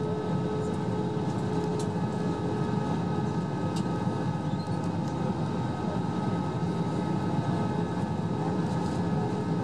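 Steady cabin noise inside an Airbus A321 airliner descending on approach: an even roar of engines and airflow, with a faint steady hum over it.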